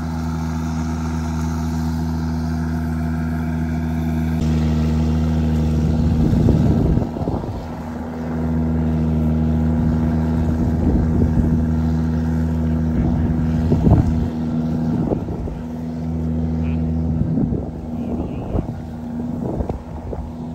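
Kubota DC-93 combine harvester's diesel engine running steadily with a constant hum while cutting rice, with irregular short bursts of louder noise over it in the second half.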